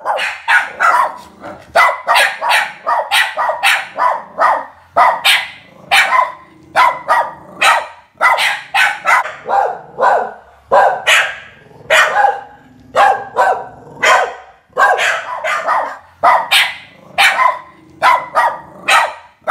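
Two border terriers barking loudly and without let-up, two or three sharp barks a second. This is persistent barking at a visitor who has come into the house, carrying on long after the person is in.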